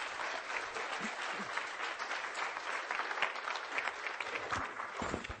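Audience applauding, a steady clatter of many hands clapping that begins to fade near the end.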